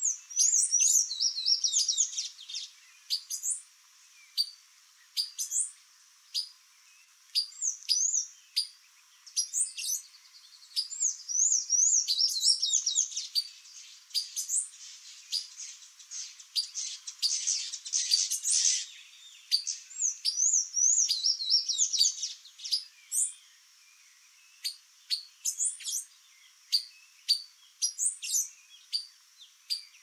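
Songbirds calling and singing: frequent short, sharp, high chip notes mixed with quick, squeaky up-and-down twittering phrases, busiest in the middle stretch.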